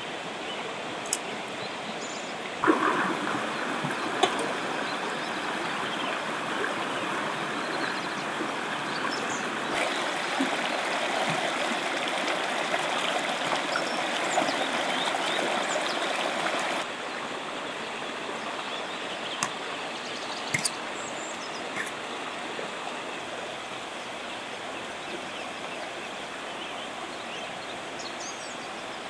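A shallow river rushing and splashing over rocks, a steady wash of water. It swells louder a few seconds in, is loudest through the middle, and drops back suddenly about two-thirds of the way through, with a few light clicks here and there.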